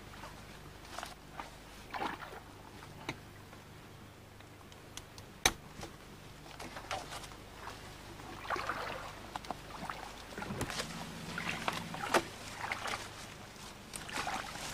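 Cut willow branches rustling and crackling as they are handled and wired to wooden stakes, with scattered clicks and two sharp snaps, the loudest about five seconds in and near the end. A faint steady low hum runs underneath.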